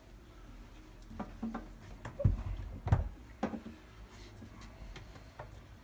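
Light clicks and knocks of plastic hoses and caps being handled, with three sharper knocks near the middle.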